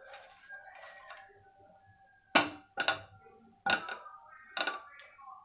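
Metal wire skimmer clinking against cookware while fried pakodas are lifted out and set down: several sharp clinks in the second half.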